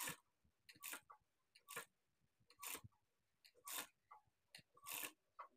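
Faint, short rustles of cloth being folded and smoothed by hand at the sewing machine, about one a second.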